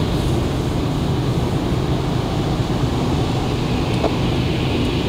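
Steady running noise of a Lada Granta FL heard inside its cabin while driving: the engine's low drone and tyres hissing on a wet road. One light tap about four seconds in.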